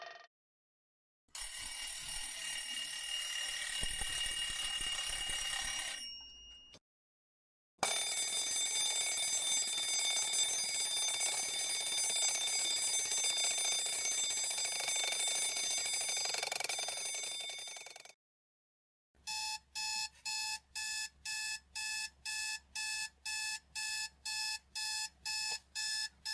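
A run of alarm clock sounds, one after another with short silences between: a few seconds of continuous ringing, then about ten seconds of steady ringing. Then comes fast electronic beeping, about two and a half beeps a second.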